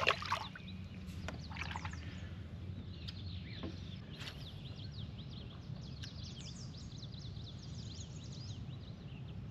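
Small birds chirping and twittering in quick high notes over a steady low background rumble, with a sharp knock and some rustling near the start.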